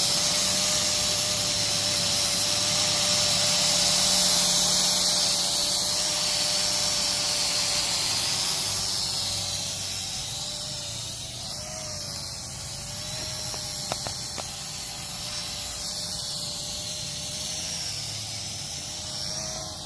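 Small quadcopter drone's propellers humming in flight, a steady whine that wavers slightly in pitch and grows fainter about halfway through, with wind buffeting the microphone. A single short click about two-thirds of the way through.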